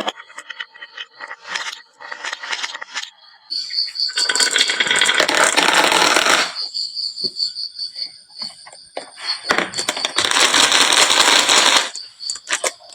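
Marbles clicking on a wooden marble run, then two long stretches of dense clattering as many marbles pour down the slope together.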